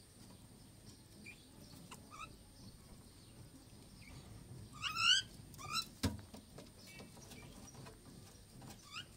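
Myna calling: a few short, faint calls, then a louder rising, wavering call about five seconds in and a shorter one just after it. A single knock sounds about six seconds in.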